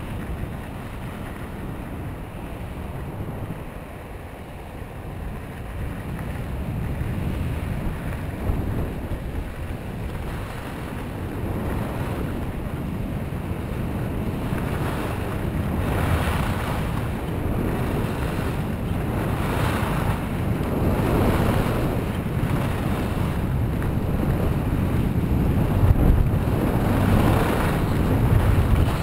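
Wind rushing over the microphone while skiing downhill, with the scraping hiss of skis carving turns on firm groomed snow; from about halfway in, the scrape swells and fades about once a second or so with each turn.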